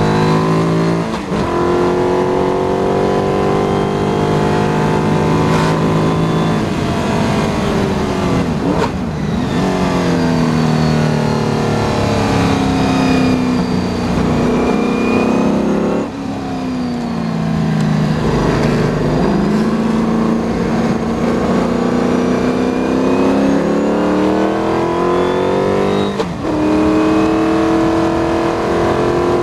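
McLaren M10B Formula 5000 car's 5-litre Chevrolet V8 at racing speed, heard from the cockpit. The revs fall with a couple of gear changes as the car slows for a corner midway, then climb steadily under acceleration, with an upshift near the end.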